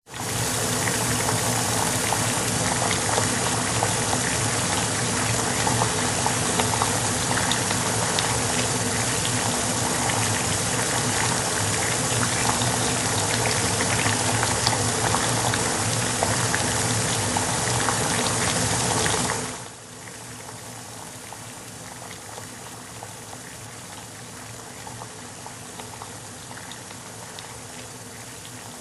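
Water boiling: a dense, steady bubbling with many small pops. A little over two-thirds of the way through it drops suddenly to a noticeably quieter level and keeps bubbling.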